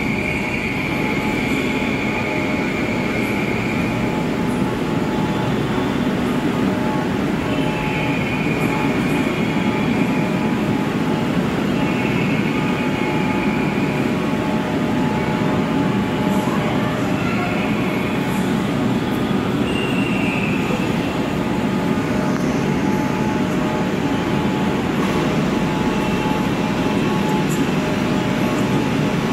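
Steady hum of a Kolkata Metro train standing at the station platform, with a higher whine that rises and fades every few seconds.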